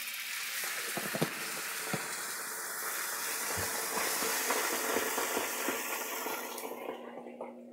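Ginger juice sizzling in a hot frying pan around a sesame-crusted salmon fillet: a loud, steady hiss with scattered pops as the liquid boils off as steam. The sizzle dies away near the end.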